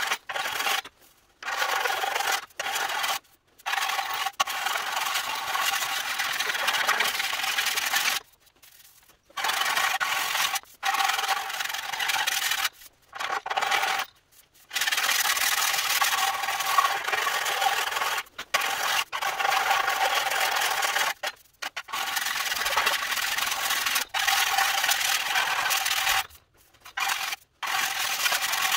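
Abrasive finishing of the steel grille surround panel: a rasping noise over a steady whine, running in spells of a few seconds that start and stop abruptly.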